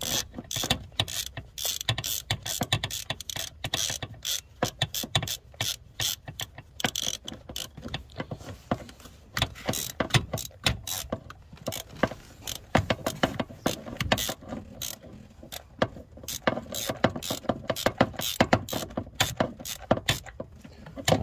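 Hand ratchet clicking in rapid runs as it is worked back and forth, driving a spark plug back into the cylinder head through a swivel spark plug socket, short of seating on its crush washer.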